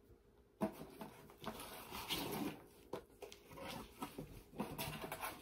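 Paper and packaging rustling and light knocks as items are handled and unwrapped on a tabletop, in irregular bursts with a few sharp clicks.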